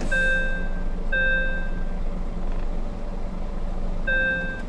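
Truck cab warning beeper sounding three times, each beep just under a second long, with a pause before the third, over the steady low hum of the running engine. It is the warning for an open door.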